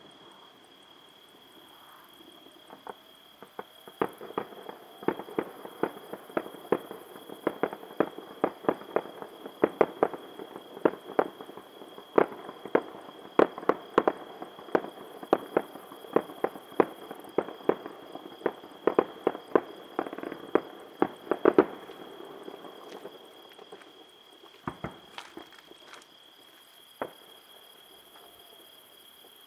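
A distant fireworks display: a rapid, irregular string of sharp bangs, several a second, starting a few seconds in and ending with the loudest bang about three-quarters of the way through, then a few scattered bangs near the end.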